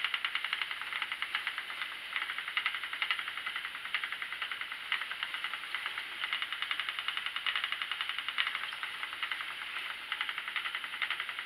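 Schacht Sidekick spinning wheel running while chain plying yarn: a fast, even ticking whir from the turning flyer and wheel.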